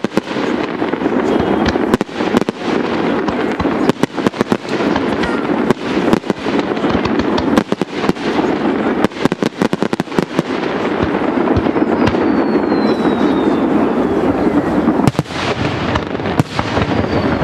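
Aerial firework shells bursting in quick runs of sharp cracks and reports, densest in the first few seconds and again from about six to ten seconds, over a steady background of noise. A faint falling whistle comes about twelve seconds in.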